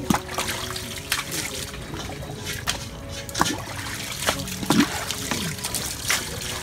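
Water trickling and splashing as it is poured from a long-handled dipper over a water buffalo wallowing in a muddy pool, with several short splashes as the dipper is scooped back into the water.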